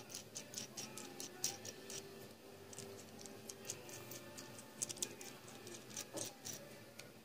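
Faint, irregular metallic clicking and ticking of a steel nut being turned by hand along a bolt's thread against a flat washer and a split lock washer, a few clicks louder than the rest.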